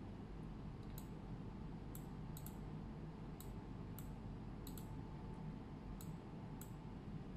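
Computer mouse clicking: about ten short, sharp clicks at irregular intervals, a couple of them in close pairs. A steady low hum sits underneath.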